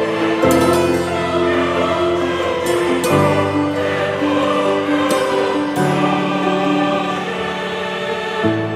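Background music with choir-like held voices and sustained chords, changing every second or so.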